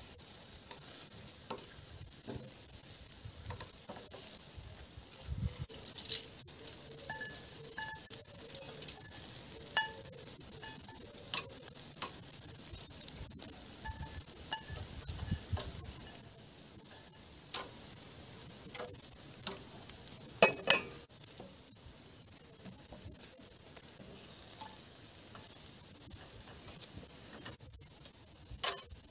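Kebabs sizzling over a charcoal grill with a steady hiss, while metal tongs click and clink against the grill grate and an enamel bowl as the kebabs are lifted off. The sharpest clinks come about six seconds in and twice in quick succession about twenty seconds in.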